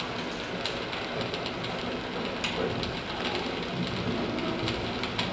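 Experimental electronic soundscape: a steady, dense noise, heaviest in the low end, with scattered faint clicks.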